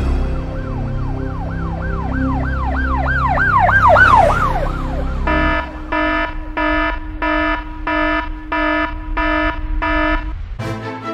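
A siren wailing up and down in quick arcs, over a low drone; it speeds up and grows louder toward its end. About five seconds in, it gives way to a loud pulsing alarm tone of one steady pitch, beeping about twice a second.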